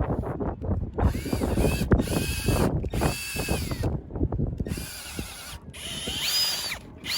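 A drill boring into a coconut's husk and shell to reach the coconut water. It runs in about six short bursts, its whine rising and falling, with knocking and scraping between the bursts.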